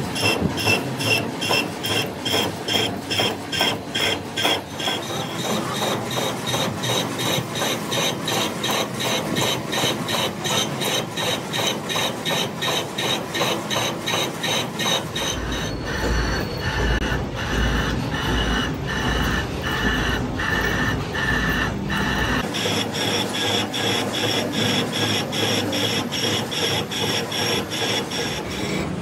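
Machine tool cutting a steel compressor crankshaft, with a regular knock about three times a second and a ringing metallic tone on each stroke. A heavier low rumble joins in for several seconds past the middle.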